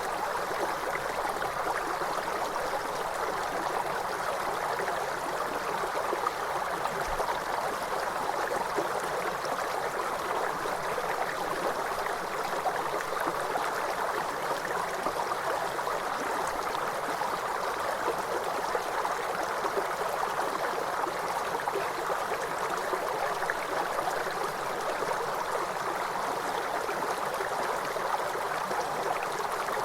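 River water flowing over rocks, a steady even rushing.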